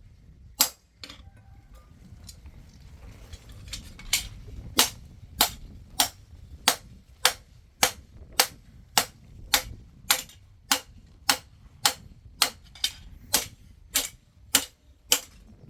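Hammer striking steel on an anvil in knife forging: one ringing blow, a pause of about three seconds, then a steady run of blows about every 0.6 seconds.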